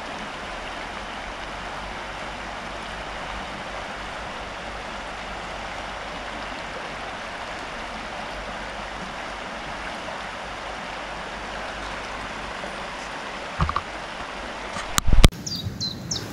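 River water rushing steadily over a shallow stretch, an even hiss. Near the end there is a sharp knock, the water sound drops away abruptly, and a few short high chirps follow.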